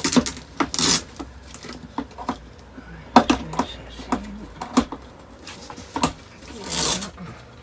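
Clicks and knocks of a fabric roman blind's headrail being worked into its mounting by hand, with the fabric rustling briefly twice.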